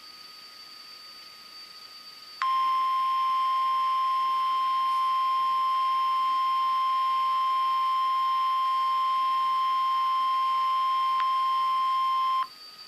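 NOAA Weather Radio warning alarm tone: a single steady 1050 Hz tone, loud and unbroken for about ten seconds, starting about two and a half seconds in and cutting off abruptly near the end. It signals that a warning message follows. Before it, a quiet stretch with a faint thin high whine.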